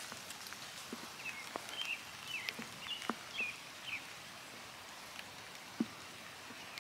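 Faint outdoor ambience by a lakeside lawn: a quiet background hiss with scattered light ticks and a few faint, high chirps between about one and four seconds in.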